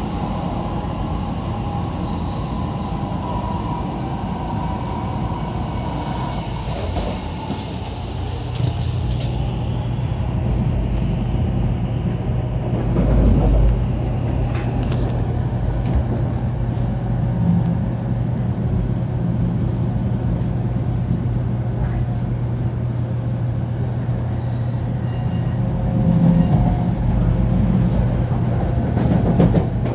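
Cabin noise of a 500 Series Shinkansen running: a steady low rumble, with a low steady hum joining about a third of the way through and a brief thump near the middle.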